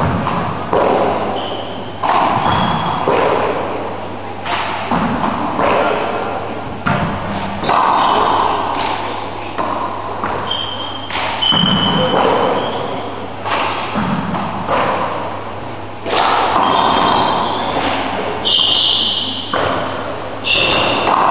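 Handball rally in a four-wall court: the ball is struck by hand and slaps off the walls and floor, sharp impacts every second or so that ring in the hall. Now and then there is a short high squeak of shoes on the wooden floor.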